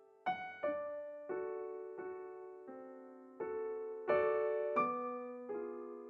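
Background piano music: notes and chords struck about every two-thirds of a second, each ringing and fading away.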